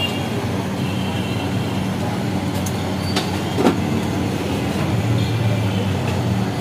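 Steady noise of a busy street-food kitchen around a large steel tawa of frying chicken: an even hiss over a constant low hum, with one brief louder sound about three and a half seconds in.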